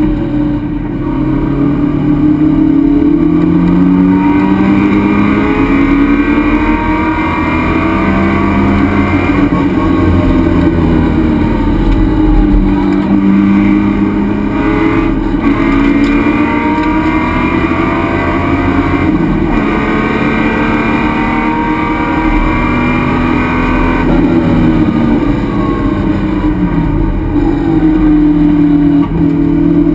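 Race car engine heard loud from inside its stripped, roll-caged cockpit, running hard on track. The revs climb and drop again several times as the car is driven around the circuit.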